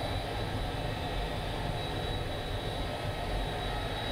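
Steady cockpit noise of the L-39 Albatros's turbofan engine as the jet rolls along the runway: an even low rumble and hiss with a faint, steady high whine.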